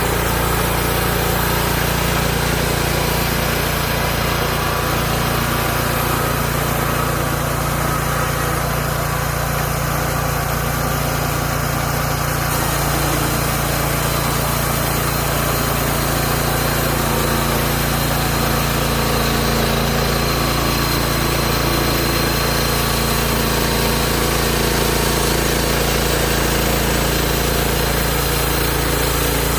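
Gasoline engine of a Hud-son Homesteader 30 portable bandsaw mill running steadily at constant speed.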